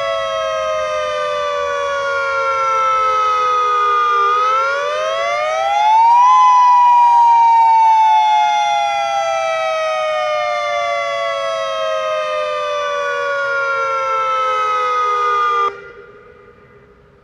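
Hawaii's outdoor civil defense warning siren sounding a wailing tone, its pitch sliding slowly down, rising quickly once and sliding down again, then cutting off suddenly near the end. The rising-and-falling wail is the attack warning signal tested for a nuclear threat.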